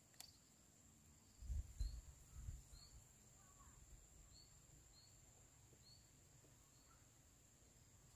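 Near silence: faint outdoor ambience with a steady high-pitched whine and small short chirps about once a second. A few low thumps come about one and a half to two and a half seconds in.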